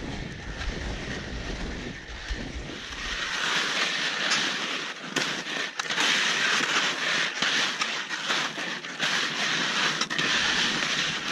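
Wind rumbling on the microphone, then from about three seconds in a steady swishing hiss of wide wooden taiga skis sliding over snow, with a few short scrapes.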